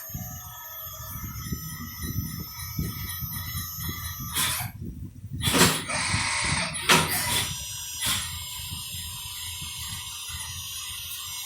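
CNC milling machine cutting 7075 aluminium: the spindle runs with a steady high whine and the end mill's cutting noise over a low rumble, with a few louder bursts about halfway through.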